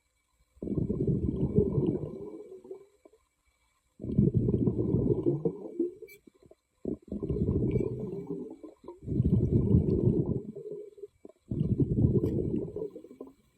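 Underwater sound of a diver's exhaled air bubbles rumbling past the microphone in five bursts, each one to two seconds long, with short quiet gaps between breaths.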